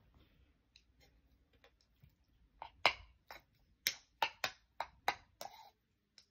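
A quick run of about ten sharp clicks and clinks over three seconds, starting about two and a half seconds in, from utensils and food being handled at the table, after a few fainter ticks.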